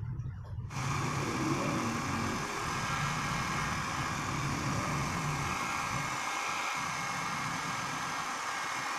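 Small handheld hair dryer switched on less than a second in, then blowing steadily with a whirring hum.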